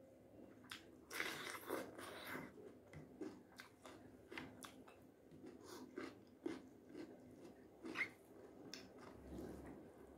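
Crunchy bite into a piece of raw cucumber about a second in, followed by chewing with short wet mouth clicks.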